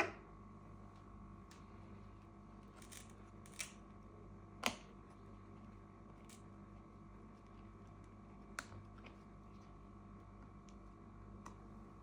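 A few sharp clicks and light taps from small tools and fingers handling parts inside an opened MacBook Air A1466, the loudest about four and a half seconds in, over a faint steady hum.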